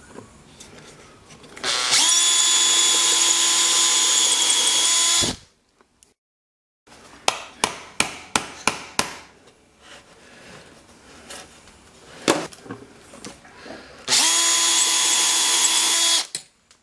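A small drill mounted in a homemade miniature drill press runs twice, each time for a few seconds, with a steady high whine while drilling bolt holes in wood. Between the two runs comes a quick series of sharp clicks and knocks.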